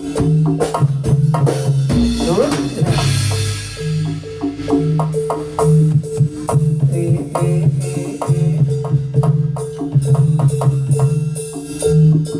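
Javanese jathilan music: a fast, steady rhythm of drum and gamelan percussion strokes over sustained low pitched tones, played loud through a large sound system. There is a crash about two seconds in.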